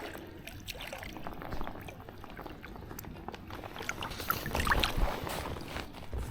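Water splashing and sloshing, with scattered small clicks and knocks.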